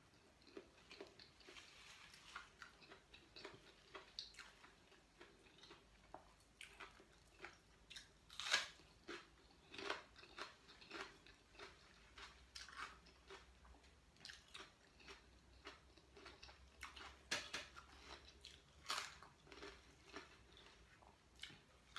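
A person chewing and biting food close to the microphone, including crunchy raw red bell pepper: faint, irregular soft crunches and mouth clicks.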